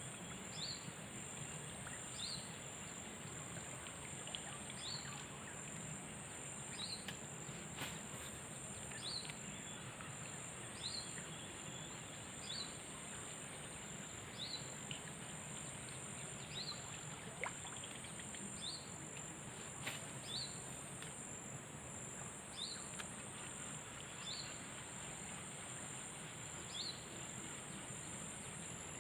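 A steady high-pitched insect drone with a short rising chirp repeated every second or two, and a few sharp clicks, about eight and twenty seconds in.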